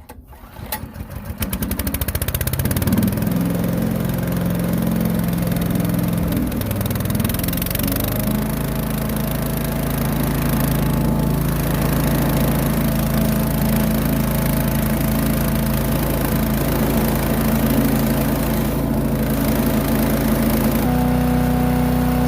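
Small engine of a wood chipper starting up, building over the first couple of seconds, then running steadily. About seven to eight seconds in the engine speed rises and holds, and it changes again near the end.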